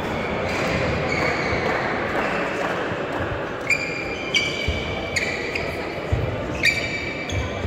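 Badminton rally: from about halfway, five sharp, high ringing squeaks and strikes from court shoes and rackets, with dull footfalls in between, over a murmur of voices echoing in the sports hall.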